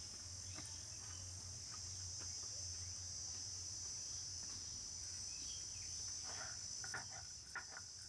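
Steady, high-pitched insect chirring throughout. About six seconds in, a stone pestle starts rubbing whole spices on a flat grinding stone (shil-nora) in short, repeated scraping strokes.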